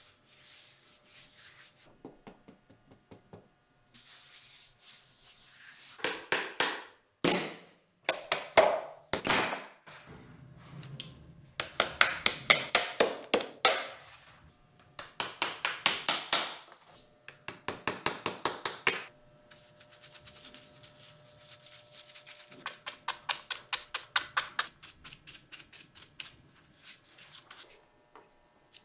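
Hand tools working a boot on the last: several bursts of quick, light taps and knocks, each lasting a second or two, with short pauses between.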